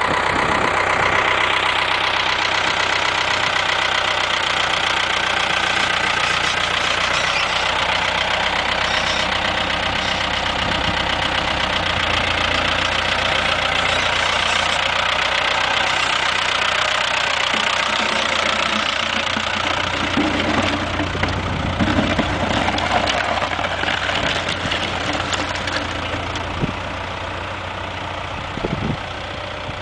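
Ford tractor engine running steadily, growing a little fainter over the last third, with a few short knocks near the end.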